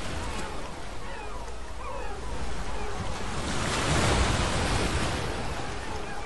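Gulls screeching, many short gliding cries, over a steady wash of surf and wind that swells into a louder rush midway.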